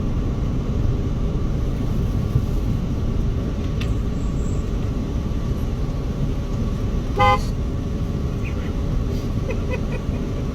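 Steady road and engine noise of a moving car, with one short toot of a car horn about seven seconds in.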